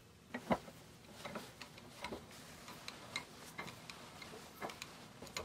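Faint, irregular light clicks and taps, about two a second, over quiet room tone.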